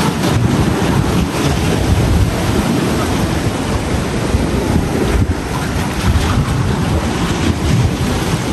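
Wind buffeting the microphone with a loud, uneven low rumble, over the wash of small sea waves.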